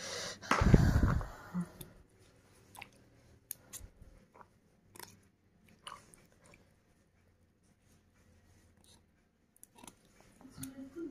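Hands rubbing and squeezing soaked pinto beans in a bowl of water to slip off their skins: scattered soft wet squelches and clicks, with one louder thump about a second in.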